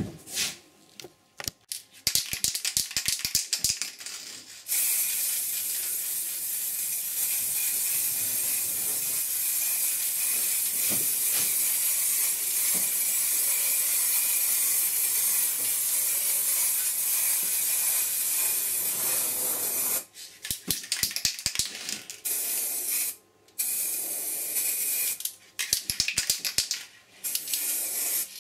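Aerosol spray-paint can: a rapid rattle for the first four seconds or so as the can is shaken, then one long steady spraying hiss of about fifteen seconds, then more rattling broken by short spray bursts near the end.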